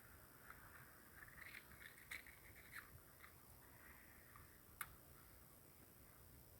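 Faint scattered small clicks and rustles over near silence, busiest between one and three seconds in, with one sharper click about five seconds in.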